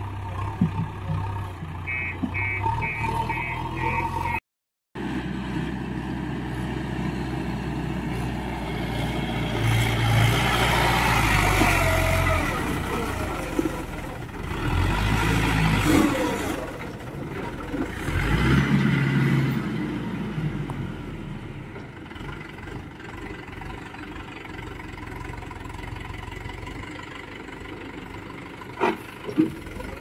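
Diesel engines of a JCB 3DX backhoe loader and a Mahindra Yuvo 415 DI tractor running, the tractor's engine revving up several times as it hauls a trolley heaped with soil. About two seconds in there is a quick run of five short high beeps.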